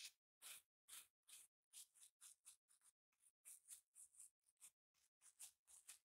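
Velcro hook-and-loop fastener rasping in a quick run of short, faint, scratchy strokes with silence between them. The strokes are about two a second at first and three to four a second after the first second.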